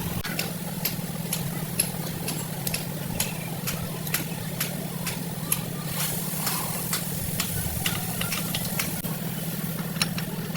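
A steady low engine hum with many short, sharp clicks scattered irregularly over it.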